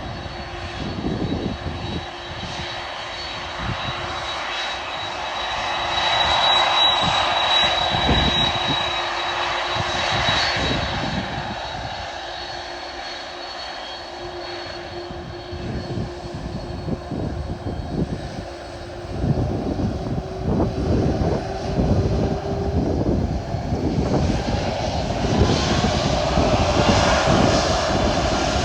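Boeing 767's jet engines running at an airport, a steady noise with a high whine and gusty low rumbles; over the last few seconds a rising whine as the engines spool up for take-off.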